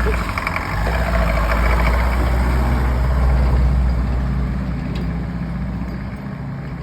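1962 Mercedes 190D's four-cylinder diesel engine running, louder for the first few seconds and then easing off after about four seconds.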